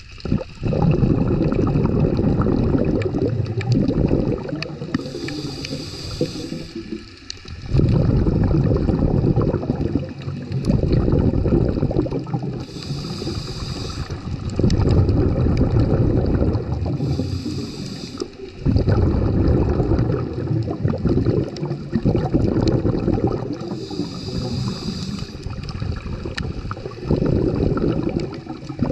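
A scuba diver breathing through a regulator, heard underwater through the camera housing: long spells of bubbling exhalation alternate with short hisses of inhalation, four breaths in all.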